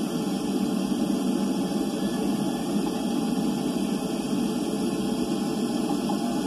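Steady low rumbling hiss of underwater ocean background noise from a hydrophone recording, with no distinct knocks, cries or calls.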